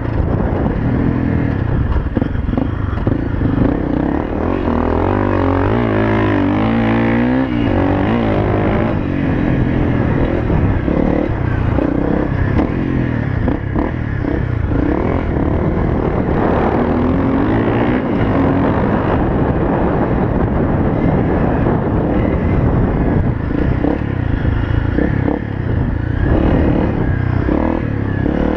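Honda CRF250L's single-cylinder four-stroke engine running while the bike is ridden, its revs repeatedly rising and falling with the throttle, heard from the rider's helmet.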